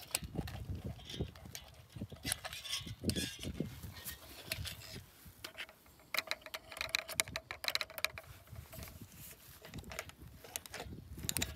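Irregular clicking and rattling of plastic electric-fence gate handles and their metal hooks being worked loose from a wooden post, over low rumbling noise on the microphone.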